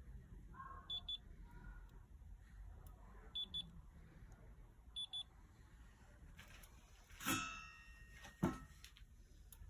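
Short high-pitched electronic double beeps from a small device, repeating every second or two, then two loud metallic clanks with a brief ringing tail, about a second apart near the end.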